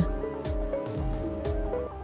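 Background music: held notes with a few light percussive hits.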